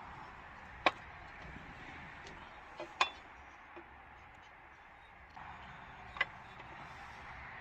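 Three sharp metallic clinks, about a second in, about three seconds in and about six seconds in, from tools and parts knocking together during work on a car's power steering reservoir and hoses, over a steady background hiss.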